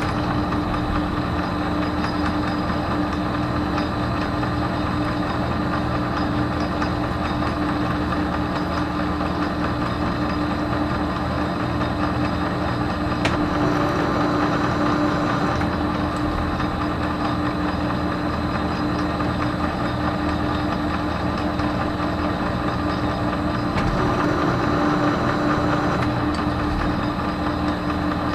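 Metal lathe running steadily, its motor and gear train humming, during single-point thread cutting on a stainless steel shaft. One sharp click about halfway through.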